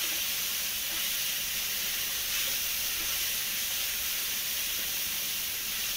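Shredded cabbage, carrot and capsicum sizzling steadily in hot oil in a metal kadhai on a high gas flame while being stirred with a wooden spatula.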